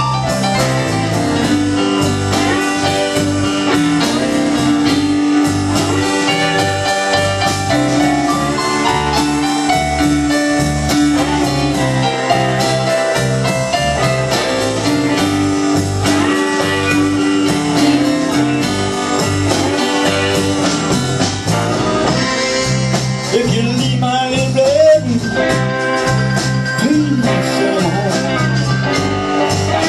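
Live blues band playing an instrumental passage: electric guitar, bass guitar, keyboards and drums, with held keyboard-like notes and bent guitar notes near the end.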